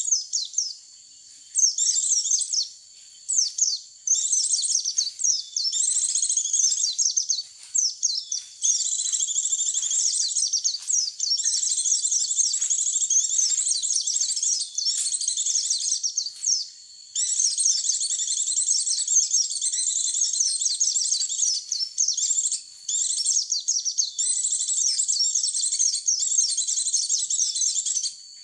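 White-eye (pleci) song played as a bird lure: rapid, high-pitched twittering and chirping, almost continuous, with a few brief pauses.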